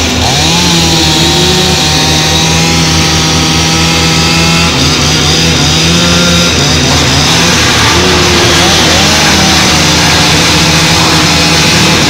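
Stihl chainsaw running under load as it cuts through a pine log, then a wood chipper's engine running steadily while pine branches are fed in. The pitch wavers slightly as the load changes.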